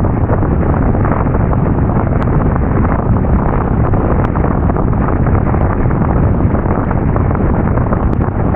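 Strong wind buffeting the microphone in a steady loud rush, with a few faint clicks.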